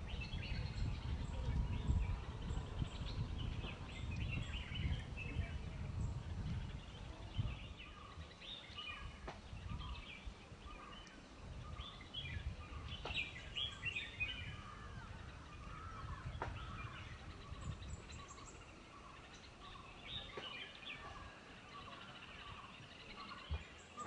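Several wild birds calling and singing in forest, many short chirps overlapping, with one bird repeating a lower note over and over in the second half. A low rumble underneath fades out about eight seconds in.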